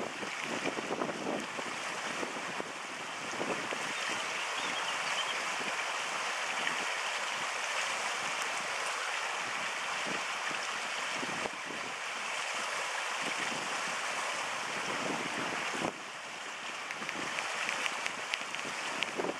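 Fast-flowing stream rushing steadily past the rocks, with wind buffeting the microphone now and then.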